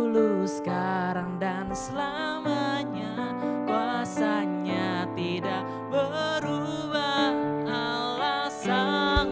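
Live worship band playing: a male vocalist singing over electric guitar, bass guitar and Yamaha keyboard.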